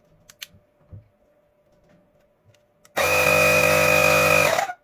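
A cordless car tyre inflator's small electric air compressor is test-run after repair. After a couple of faint clicks, it starts suddenly about three seconds in and runs with a steady, loud buzzing drone for under two seconds, then cuts off.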